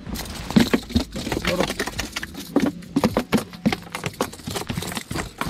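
Rapid, irregular knocks and thumps on a boat deck: a small freshly landed fish flapping about.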